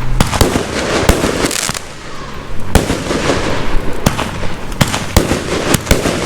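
Fireworks display going off: a fast run of sharp bangs over continuous crackling, with a brief lull about two seconds in.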